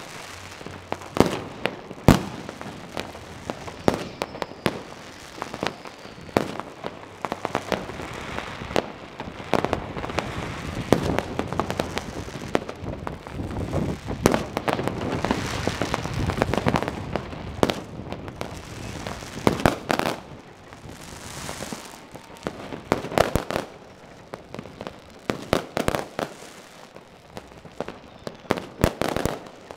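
Fireworks rockets and firecrackers going off all around: scattered sharp bangs, with stretches of dense crackling through the middle.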